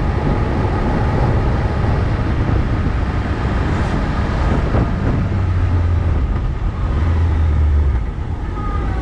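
Motorcycle riding along a country road: engine running under heavy wind rumble on the camera's microphone. An oncoming car swishes past about four seconds in, and the sound drops a little near the end as the bike slows for a junction.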